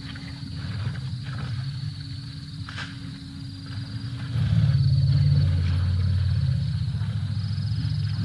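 African elephant rumbling: a low, steady, deep call that starts about four seconds in and lasts several seconds, over crickets chirping.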